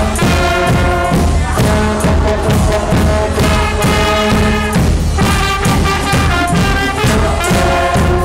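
A carnival brass band playing loud, with trumpets and tubas over a steady bass drum beat.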